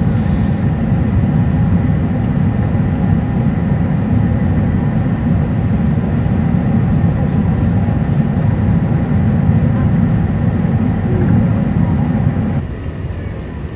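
Steady low rumble of an Airbus A380 heard from inside the cabin on approach: engine and airflow noise with a faint steady whine. About twelve and a half seconds in, the rumble suddenly drops quieter.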